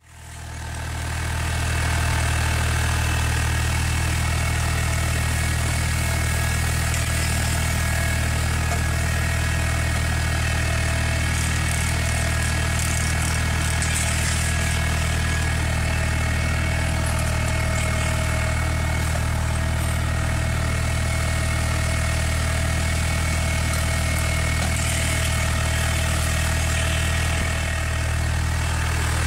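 Tractor engine running at a steady speed while it powers a hydraulic rotary weeding brush and a hilling plough cutting through vineyard soil. The sound fades in over the first couple of seconds and then holds level.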